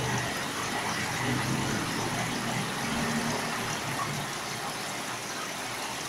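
Aquarium aeration: a steady rush of bubbling, splashing water from the tank's air stream, with a faint low hum coming and going underneath.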